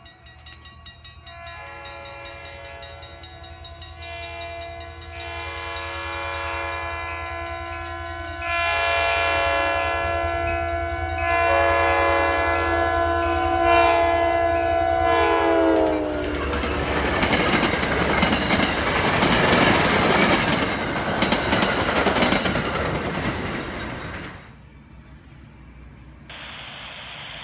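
MBTA commuter rail locomotive sounding its multi-chime air horn in a series of long blasts as it approaches, the pitch falling on the last blast as it passes. Then the rumble and clatter of the train's wheels over the rails, which cuts off suddenly near the end.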